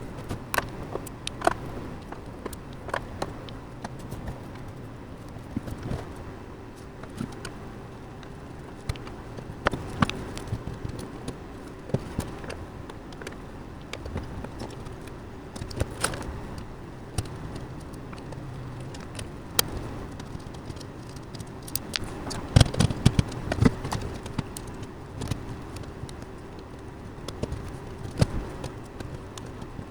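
Sporadic clicks, taps and light rattles of hard drives and metal computer-case parts being handled and fitted, with a busier run of knocks about three quarters of the way through. A faint steady hum sits underneath.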